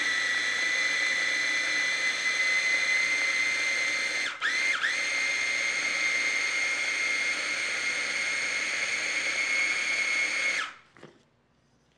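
Electric mini chopper running steadily with a high motor whine as it blends butter and raspberry jam. A little over four seconds in, the motor drops out briefly and spins back up, then it stops near the end.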